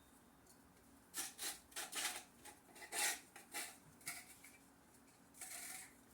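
Salt shaken from a shaker onto pumpkin seeds on a pan: about eight quick shakes over three seconds, then one longer shake near the end.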